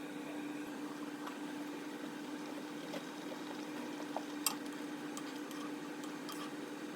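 A pot simmering with faint bubbling over a steady hum, with a few light clicks about halfway through.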